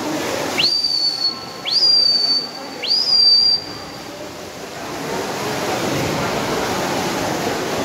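Three loud, high whistles about a second apart, each sweeping quickly up and then held for about a second, cheering on swimmers in a race. From about five seconds in, a steady wash of echoing pool-hall noise from splashing and spectators.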